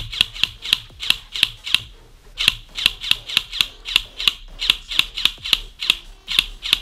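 Airsoft electric rifle (AEG) firing single shots in quick succession, sharp cracks about three to four a second, with a brief pause about two seconds in.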